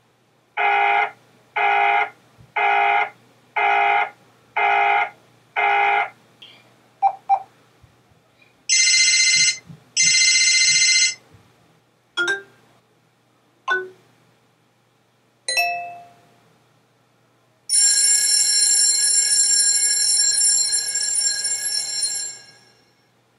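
BlackBerry Bold 9700 ringtones and alert tones played one after another: first a run of short, evenly spaced tone bursts about one a second, then two brief high bursts, three short chimes, and a long bright high tone that fades out near the end.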